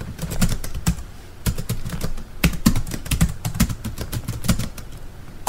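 Typing on a keyboard: a quick, irregular run of key clicks.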